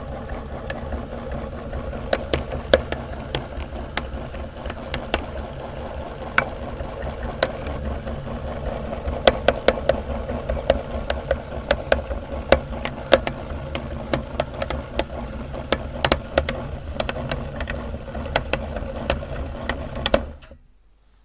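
Electric meat grinder running steadily, its auger crunching cookies with many sharp irregular cracks, thickest in the second half; the grinder stops abruptly near the end.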